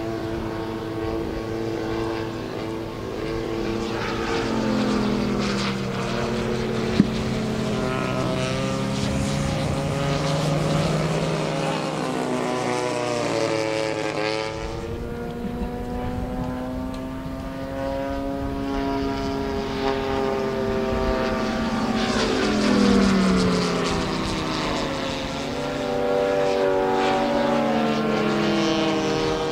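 Large-scale RC F4U Corsair's Moki radial engine running in flight, its pitch rising and falling each time it passes, several times. At first a second model plane's engine runs alongside it. There is a single sharp click about seven seconds in.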